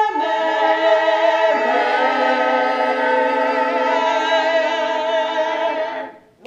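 Choir singing a cappella in parts, holding long notes with a slight vibrato, which stop about six seconds in.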